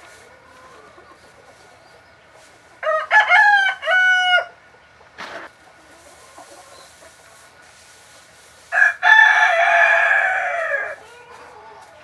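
A rooster crowing twice, about three seconds in and again about nine seconds in; the second crow ends in a long, slightly falling note.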